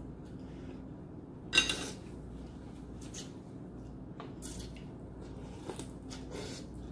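Ramen noodles slurped off chopsticks in several short slurps, with a sharp clink of a utensil against a porcelain bowl about one and a half seconds in.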